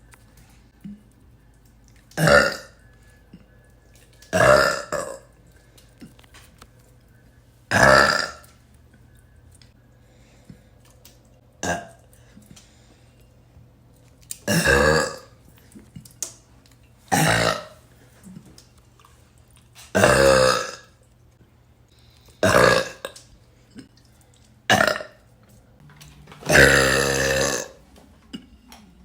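A woman burping repeatedly: about ten separate burps a couple of seconds apart, one in the middle short and quieter, the last one near the end longer and drawn out.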